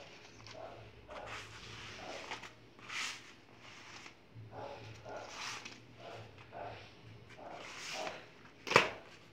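Rustling and crinkling of a thin, shiny fold-up fabric shopping bag as it is unfolded, handled and shaken out, with one sharp knock near the end.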